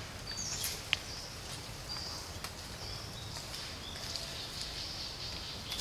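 Light clicks and rustles of a young macaque picking through dry leaves and ash, the sharpest click about a second in, over a low outdoor rumble with short high chirps here and there.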